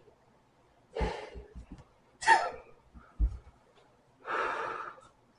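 A man breathing hard through his hands held over his mouth: a few short, sharp breaths, then a longer exhale near the end. He is fighting the burn of very spicy ramen.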